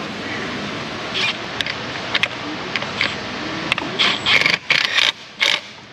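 A cordless power tool running in several quick bursts as it drives in the 10 mm bolt holding the power steering reservoir to its bracket, about four seconds in. Before that, a few light metallic clicks and scrapes over a steady background hiss.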